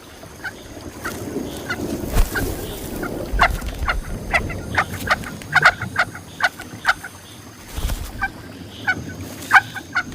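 Picathartes chicks begging at the nest: many short, sharp calls, irregular and often coming in quick clusters, over a low steady rumble.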